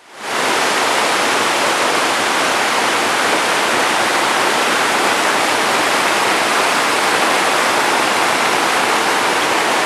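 Waterfall: a loud, steady rush of falling water, fading in over the first half second.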